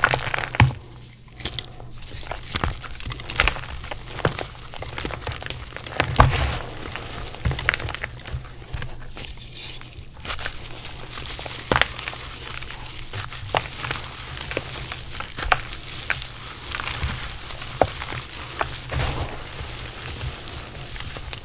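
Blocks of reformed gym chalk crushed and crumbled by hand: irregular soft crunches and crackles as the chalk breaks apart and powder falls into the bowl.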